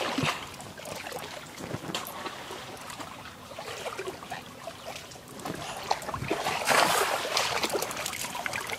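Shallow water splashing and sloshing as people wade and work their hands through it, in irregular bursts, with the loudest burst of splashing about seven seconds in.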